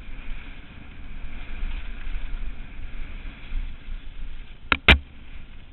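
Mountain bike running fast down a dirt trail, heard from a helmet-mounted camera: wind buffeting the microphone over the rumble and rattle of the bike on the dirt. Near the end come two sharp knocks a fraction of a second apart.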